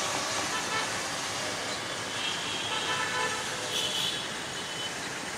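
A few short horn toots midway, over a steady background of traffic and crowd noise at a busy level crossing.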